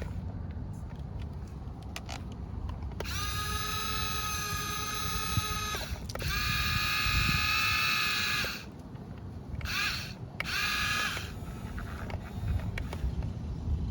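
Small electric gear motors of a remote-control toy excavator whining in bursts as its functions are driven: two long runs of about three seconds each, then two short ones, each starting with a slight rise in pitch. A low rumble lies underneath throughout.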